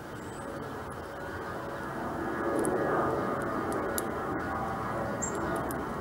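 Distant engine drone, low and steady, swelling louder about two and a half seconds in and staying up.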